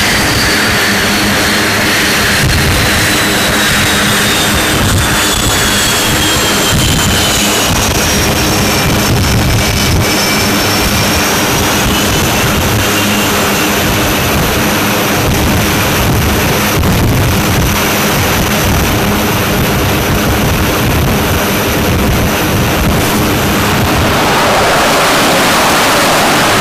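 Twin jet engines of an F/A-18 running at high power on a carrier deck: a steady loud jet noise with a high whine that slides down in pitch over the first several seconds. It grows louder near the end as the jet runs up for a catapult launch with afterburners lit.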